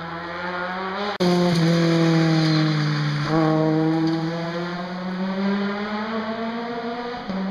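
Rally car engine slowing for a tight bend: the revs fall, jump up once about three seconds in, then climb steadily as the car accelerates away. The sound gets suddenly louder about a second in.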